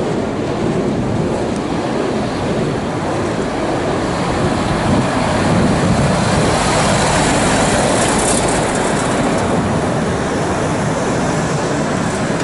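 A MAN refrigerated rigid truck driving past, its engine and tyre noise swelling as it passes and easing as it pulls away.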